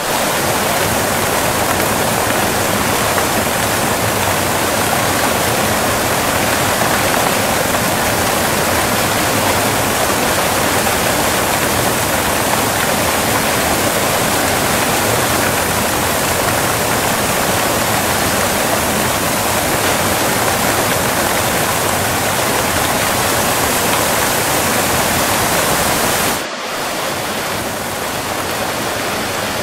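Close-up waterfall: a steady, loud rush of falling water. Near the end it cuts out for an instant and carries on a little quieter.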